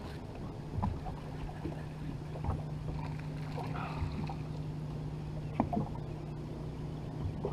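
Bass boat's electric trolling motor humming steadily, with scattered light knocks and clicks from the boat and fishing gear.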